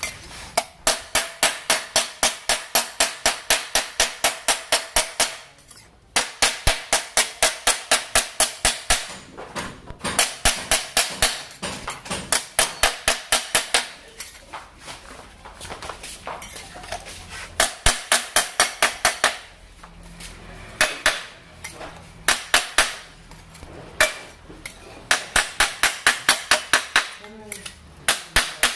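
Hammer driving a metal scraper against the cylinder block deck of an Isuzu Panther diesel engine, chipping off old head gasket residue. The blows come in quick runs of about four or five a second, broken by short pauses.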